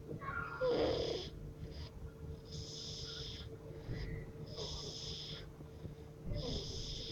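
Snoring: slow, hissy, slightly whistling breaths about every two seconds, four in all, the first with a stronger snort.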